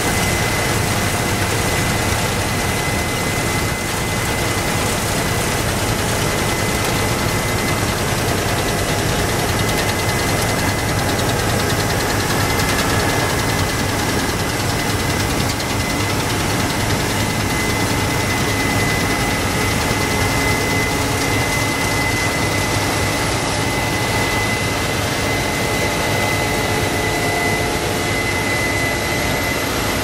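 Case IH Axial-Flow combine harvester running steadily as it cuts and threshes rice, a continuous engine and machinery drone with a steady high-pitched whine over it.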